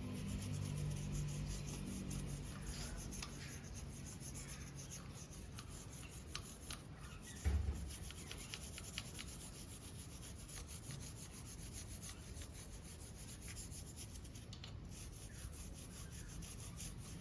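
Brush scrubbing a motorcycle drive chain: a quiet, continuous run of quick rasping strokes, with one low thump about seven and a half seconds in.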